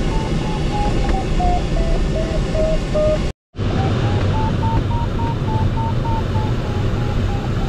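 A glider's audio variometer beeping in short pips, about three a second, over steady airflow noise in the cockpit. The pitch sinks over the first few seconds, then the sound cuts out for an instant and the pips return higher, climbing: the beeping signals the sailplane rising in lift.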